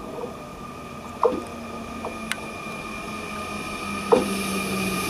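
Z 20900 double-deck electric multiple unit approaching, its running hum growing steadily louder, with a few sharp clicks, the loudest about a second in and about four seconds in.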